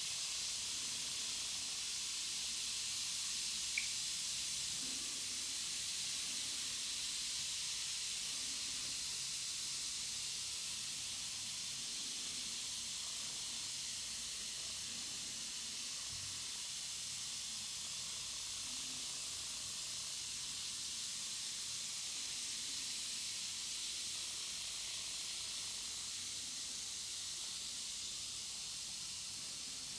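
Carbonated bath bomb fizzing as it dissolves in water, a steady hiss of bursting bubbles that eases off slightly over time. A single small click about four seconds in.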